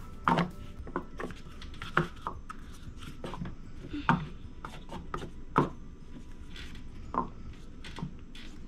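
Irregular light taps and knocks of paper cups being set down on a tabletop and small wooden model-kit parts being handled, with a few sharper knocks spaced a second or two apart.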